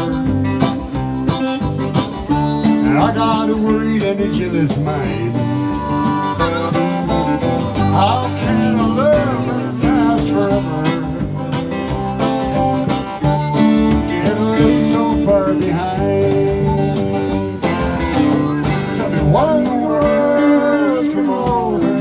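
Country band playing an instrumental break: a harmonica lead over strummed acoustic guitar, electric guitar, bass guitar and drums.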